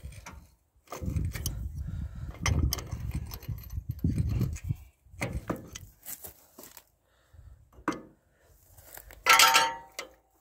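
Metal clinking and scraping as the lower threaded adjuster on a tractor plough is worked with tools, with one louder metallic clank near the end.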